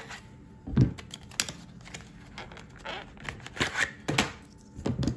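Stiff clear plastic blister packaging crackling and clicking as a fillet knife and its plastic sheath are worked out of it, with a few sharp knocks as they are handled and laid down, the loudest about a second in and near the end.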